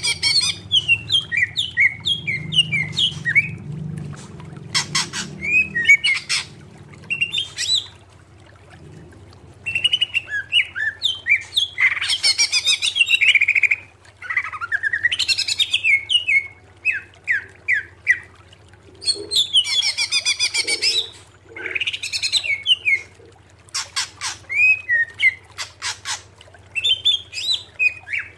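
Greater green leafbird (cucak ijo) singing loudly: quick bursts of chirping, warbling and rapidly repeated notes, each phrase a second or two long, broken by short pauses.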